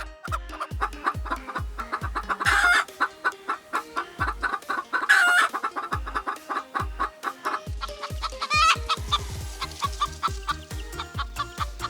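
Chickens clucking, with louder rooster calls about two and a half, five and eight and a half seconds in, over electronic music with a steady, fast beat.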